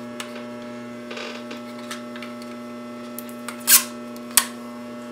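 Steady low electric hum. About three-quarters of the way through there is a short scratchy rustle, followed by a single sharp click.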